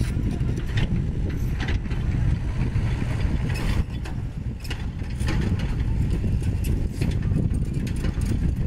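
Sany SY75C excavator's diesel engine running under working load, with scattered metallic clanks and scrapes as the bucket works the soil and rubble. The sound is briefly quieter about four seconds in.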